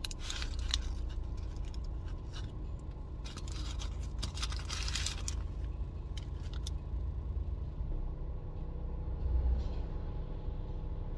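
Paper food wrapping crinkling and rustling as a fried aloo pie is handled, in a couple of bursts near the start and again a few seconds in, over a low steady hum.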